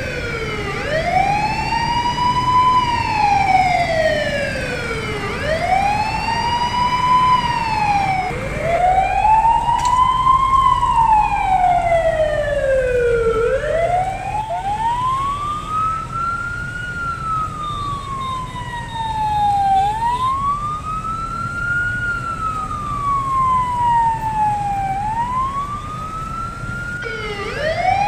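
Fire truck siren wailing, rising and falling in slow sweeps of about four to five seconds each, pitched higher from about halfway, over a low rumble of engine and traffic.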